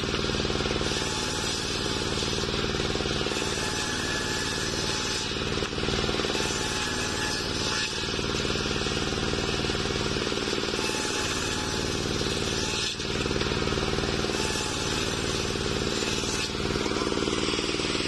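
Small stationary engine running steadily, driving a homemade table circular saw, with a constant hum from engine and spinning blade.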